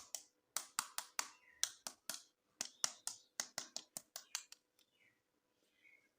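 A quick, uneven run of about twenty sharp plastic clicks and snaps from toy packaging or a plastic toy being handled in an unboxing, stopping after about four and a half seconds, followed by faint rustling.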